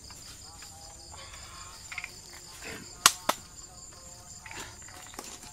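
Steady chorus of night crickets, pulsing on high notes. About three seconds in come two sharp knocks a fraction of a second apart.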